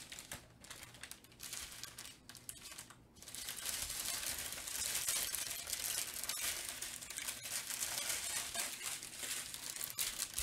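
Plastic bags of diamond-painting drills (tiny resin rhinestones) crinkling as they are handled, with the drills shifting inside. The sound is patchy for the first few seconds, then continuous from about three seconds in.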